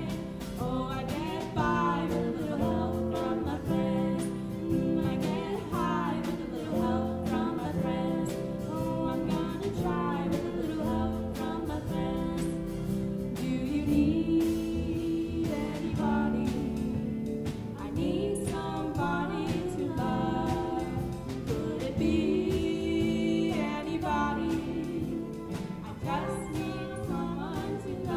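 Live band playing a song: a lead vocal over electric guitars, keyboard and drum kit, with regular drum hits throughout.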